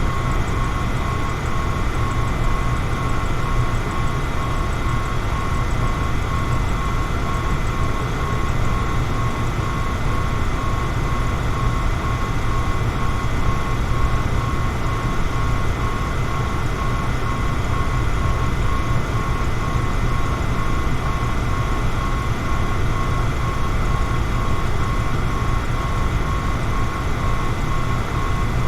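Electric fan running steadily: an even rushing noise with a low hum and a thin, evenly pulsing whine.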